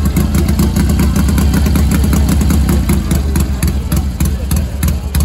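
Vintage motorcycle engine idling, loud and close, with a fast, even pulsing beat.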